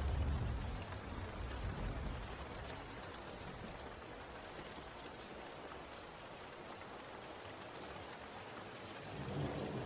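Steady rain falling, an even hiss, with a low thunder rumble dying away over the first two seconds and another rumble building near the end.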